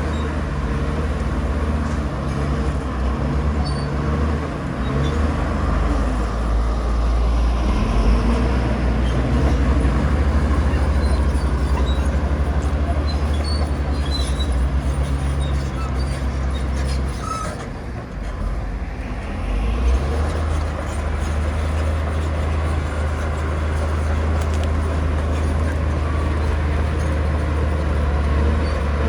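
Heavy earthmoving machine's diesel engine running steadily under load. It eases off briefly about two-thirds of the way through, then picks up again.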